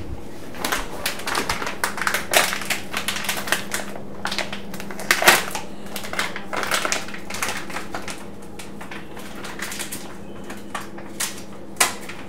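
Crinkling and rustling of a paper coffee bag as its folded top is unrolled and pulled open by hand, an irregular run of crackles.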